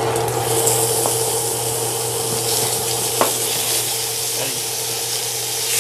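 Sliced pork steak sizzling as the pieces are slid off a cutting board into a hot cast iron skillet, the hiss swelling as the meat lands. A light click about a second in and a sharp knock about three seconds in. A steady low hum runs underneath.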